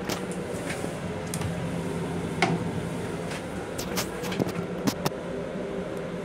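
Steady hum of a Long Island Rail Road M7 railcar heard inside its restroom, with a few sharp clicks and rattles, the loudest about two seconds in.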